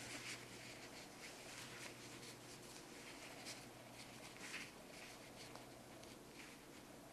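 Faint, soft rustling and brushing as hands handle a crocheted yarn toy, a few short scuffs over a low steady room hiss.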